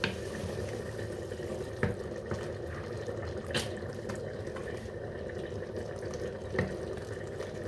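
Whole carton of cooking cream being poured into the frying pan of beef and mushrooms: a steady liquid noise with a few light clicks.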